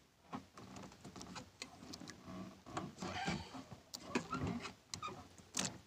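Fishing hand line being pulled and worked through the hands: irregular rustling and scraping with light clicks and a few short squeaks.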